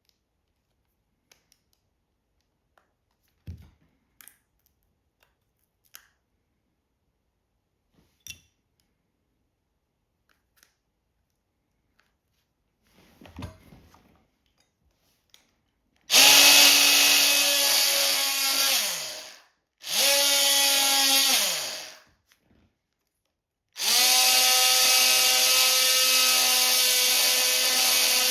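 Faint handling clicks and knocks, then a handheld power tool run three times in short bursts, a steady high whine with a hiss of cutting or grinding, its pitch falling away each time it is released.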